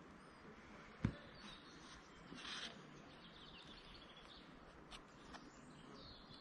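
Quiet forest ambience with faint bird chirps. A single sharp knock about a second in, and a brief scuff about two and a half seconds in.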